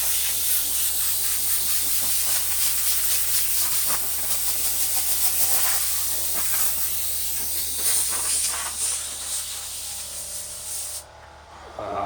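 Compressed-air blow gun hissing in one long continuous blast, blowing debris off the car seats, then cutting off suddenly near the end.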